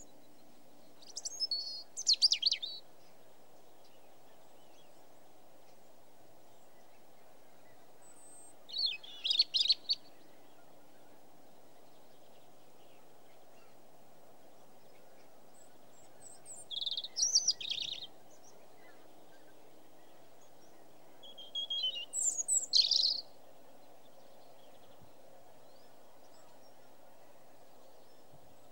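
Bird calls in four short bursts of quick high notes, several seconds apart, over a steady low background hum.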